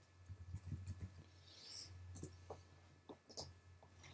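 Faint computer keyboard typing and mouse clicks, a scatter of short taps in the first second and a few more separate clicks in the second half, over a low steady hum.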